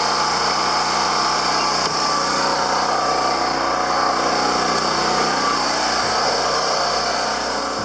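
Portable gasoline generator engine running steadily at a constant speed, powering the cabin's air conditioner.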